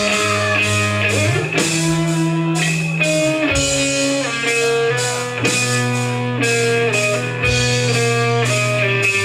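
A punk rock band playing live: electric guitars and bass hold sustained chords that change every second or so, over drums with a steady wash of cymbals.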